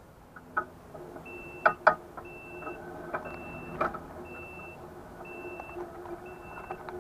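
Mobility scooter backing up: its reverse warning beeper gives a high half-second beep about once a second, six times, over a low steady hum. A few sharp clicks come in the first four seconds, the loudest sounds here.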